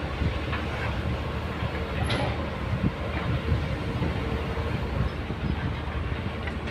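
Kobelco hydraulic excavator's diesel engine running under load while its bucket digs into rocky soil, with irregular knocks and clatter of stones on the steel bucket and tracks.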